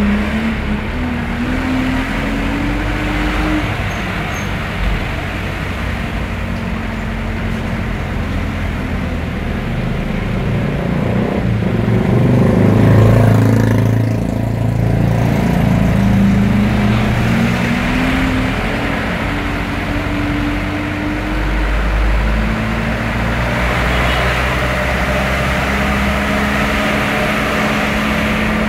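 Vehicle engine heard from inside the cab while creeping along in slow traffic, its pitch rising and falling several times as it pulls away and eases off, over steady tyre and road noise. It is loudest about halfway through.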